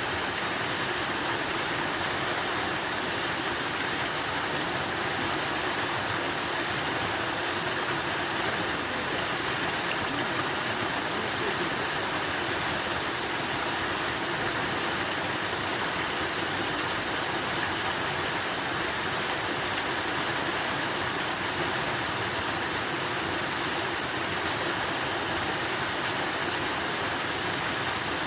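Running water rushing steadily and evenly, with no breaks or separate splashes.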